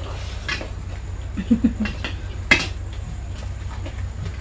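A person eating: a short murmur about a second and a half in, and a sharp click-like mouth or utensil sound about two and a half seconds in, over a steady low hum.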